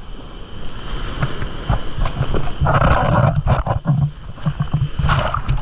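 Sea water splashing and churning close to the microphone in the surf, with irregular low rumbling and a louder rush of water about three seconds in.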